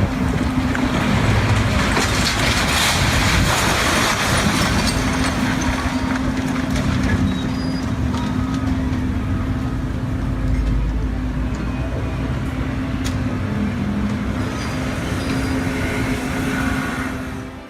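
A heavy vehicle engine running with a steady low hum over continuous rumbling noise and scattered clicks. It cuts off abruptly near the end.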